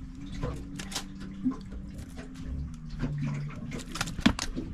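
Live crappie flopping in a plastic cooler full of fish, making wet slaps and knocks against the cooler walls that come in a quick cluster near the end. A steady low hum runs underneath.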